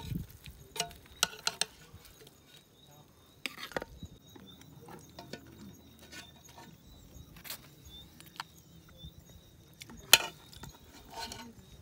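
A steel serving spoon clinking and scraping in an aluminium pressure-cooker pot as food is dished up. It makes scattered, irregular clinks, the loudest about ten seconds in.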